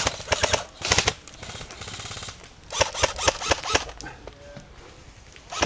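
Airsoft rifles firing rapid bursts, a fast clatter of shots: one burst at the start, a short one about a second in, and a longer one around three seconds in.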